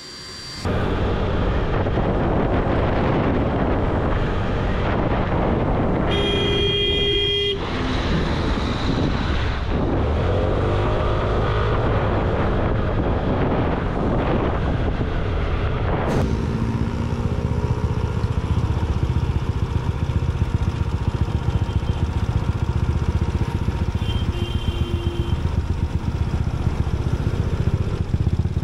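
Motorcycle riding noise, engine, wind and road together, with a vehicle horn honking once, steadily for about a second and a half, about six seconds in.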